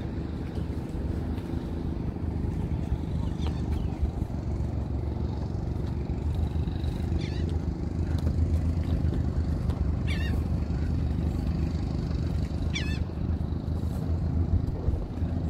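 Steady low outdoor rumble, with short falling bird calls four times, one every few seconds.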